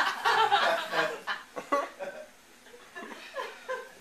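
Laughter fading away over the first couple of seconds into a few scattered chuckles.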